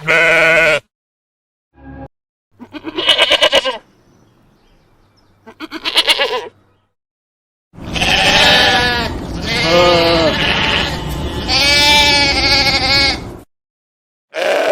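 Domestic sheep bleating: a string of separate baas with silent gaps between them, some with a quavering, pulsing tone, then several bleats in close succession for about five seconds in the second half.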